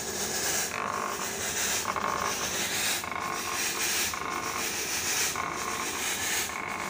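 Electric sanitizer fogging machine running as it blows out mist: a steady hiss with a pulse repeating a little more than once a second.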